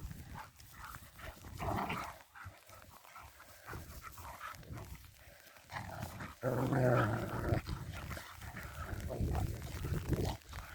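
Dog vocalising during play, a low growl among short grumbles, the loudest and longest lasting about a second starting some six and a half seconds in.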